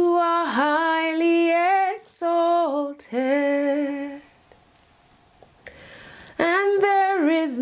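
A woman singing unaccompanied, holding long, steady notes in a few short phrases, with a pause of about two seconds midway.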